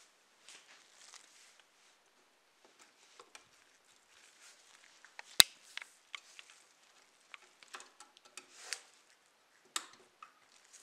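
Gloved hands handling a restored diecast Lamborghini Urus model car: scattered light taps and clicks on the metal and plastic body with soft rustles of the gloves, and one sharp click about halfway through.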